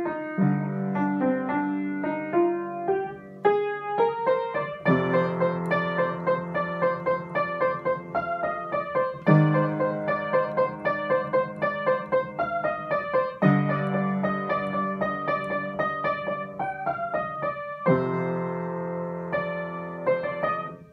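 Lastochka upright piano played with both hands: a melody over low held chords, with a fresh bass chord struck about every four seconds and a last chord left ringing near the end.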